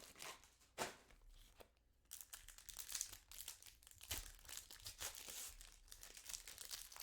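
Plastic card-pack wrapping crinkling and tearing as a box of trading cards and its packs are opened, with a sharp rip about a second in and dense crinkling from about two seconds on.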